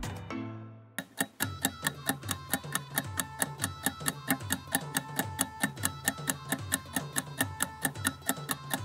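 Countdown-timer sound effect: quick, even clock-like ticking, several ticks a second, coming in about a second in as background music fades out.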